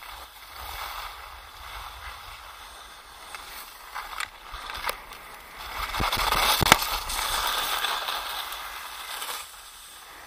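Skis sliding and scraping over the snow on a descent: a steady rushing hiss that grows loudest and harshest for about three seconds past the middle, with a few sharp knocks just before and during it.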